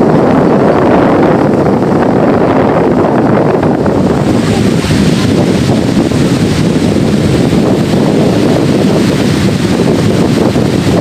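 Strong wind buffeting the phone's microphone, with surf washing on the shore beneath it.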